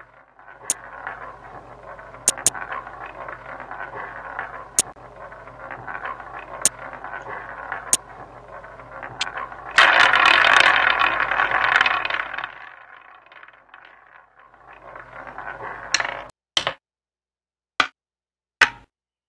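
Online roulette game sound effects. Sharp clicks come as betting chips are placed on the layout, then a louder rattling roll starts about ten seconds in as the wheel is spun. A few separate sharp clicks follow near the end.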